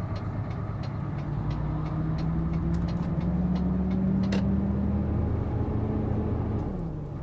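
Semi-truck's diesel engine heard from the cab, pulling hard as the truck accelerates away, its pitch rising slowly for about six seconds and then dropping near the end as the revs fall.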